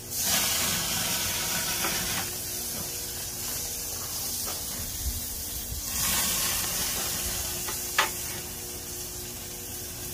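Steaks sizzling on a hot gas grill as spoonfuls of basting juice are poured over them, the sizzle swelling at the start and again about six seconds in. A sharp tap about eight seconds in.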